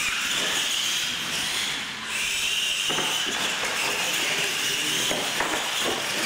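Two R/C monster trucks launching and racing down a concrete floor: the high whine of their electric motors and gears over the hiss of tyres. It starts suddenly, eases briefly about two seconds in, then picks up again.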